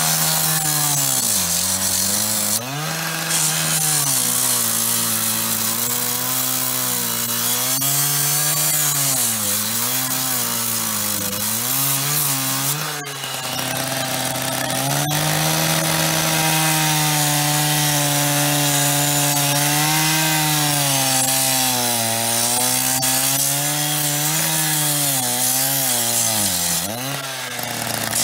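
Power cutting tool slicing into the metal face of a payphone: the motor runs loud and its pitch sags and recovers over and over as the blade bites, over a steady cutting hiss. The pitch dips deeply a few seconds in, again around halfway, and near the end.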